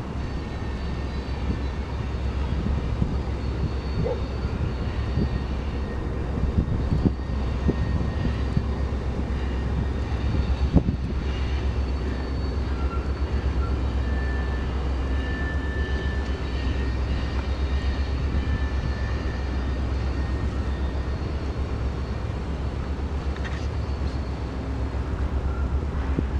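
A steady low engine drone carrying across open water, with faint higher hums above it and a couple of light clicks.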